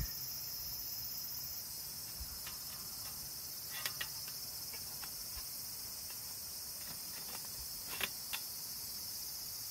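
Steady high-pitched chorus of insects chirping, with a few light clicks about four and eight seconds in.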